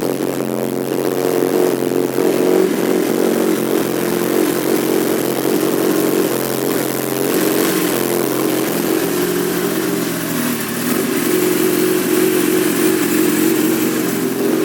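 Kawasaki Ninja ZX-10R inline-four engine running through an Akrapovič exhaust, mostly at a steady idle, with the engine note dipping and shifting briefly about ten seconds in.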